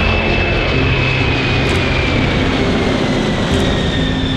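Boeing 747-400 jet engines at takeoff thrust as the jumbo jet climbs out: a loud, steady roar with a thin high whine that slowly drops in pitch.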